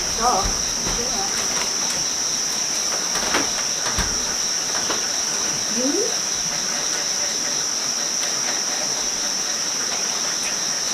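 Crickets chirring in one steady, high-pitched, unbroken drone, with a few faint clicks over it.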